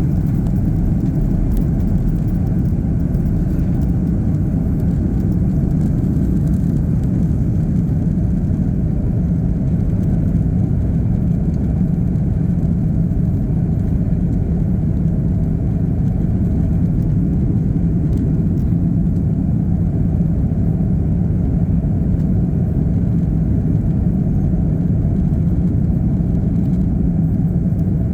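Steady low rumble inside an Airbus A330's cabin with its Rolls-Royce Trent 700 engines running, even in level with no rise in pitch.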